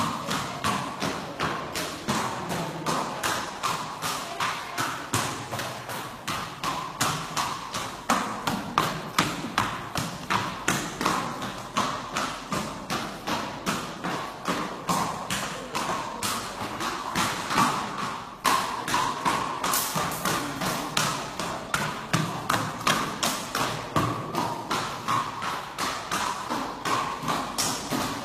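A horse's hooves striking the dirt arena floor in a quick, even rhythm, several beats a second, as it is ridden at a steady gait.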